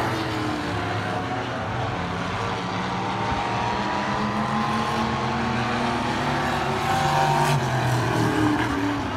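Several stock car engines running at racing speed around an oval track, their notes rising and falling as the cars come round and pass. The loudest pass is near the end.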